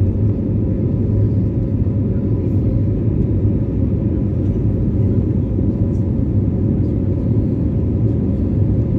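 Airliner cabin noise heard from inside the cabin: a loud, steady, low rumble of the engines and airflow that does not change.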